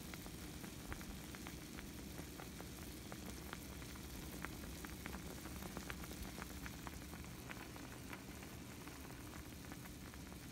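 Pot of water at a rolling boil with cavatelli pasta and broccoli cooking in it: steady bubbling with many small, irregular pops.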